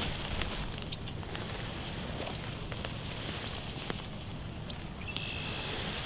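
A small animal's short, high chip call, repeated about once a second, over a steady outdoor background hiss with a few faint ticks.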